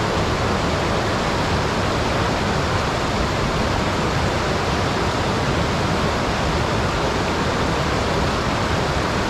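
Steady rush of a mountain stream's white-water rapids tumbling over boulders, an even noise that does not change.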